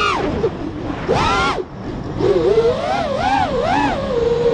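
Brushless motors and propellers of a 5-inch FPV quadcopter (T-Motor F40 V2 motors) whining as heard from the onboard camera, the pitch sweeping up and down with hard throttle punches. Pitch and level drop briefly about one and a half seconds in as the throttle is cut, then the whine wavers and settles to a steadier pitch near the end.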